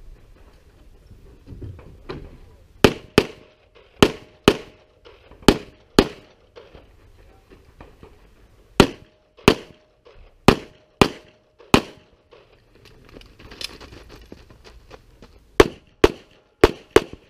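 Pistol shots fired in quick pairs about half a second apart, double taps on each target, about fifteen shots in all. They come in three strings, with short pauses between them as the shooter moves to new positions.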